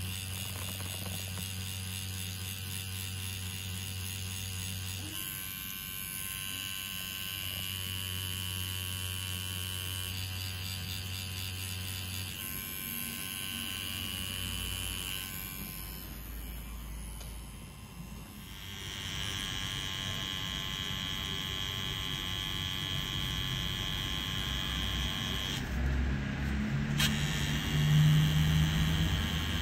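Cartridge-needle tattoo machine buzzing steadily as it packs colour ink into skin. Its whine shifts pitch a few times, and it grows louder near the end with a few low knocks.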